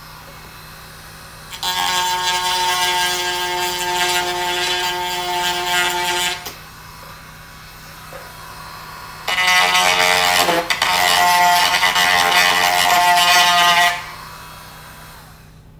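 Handheld rotary tool with a small grinding stone bit grinding out the cracked area of an RC plane's firewall: two stretches of about five seconds each of a high motor whine, with a quieter hum between them.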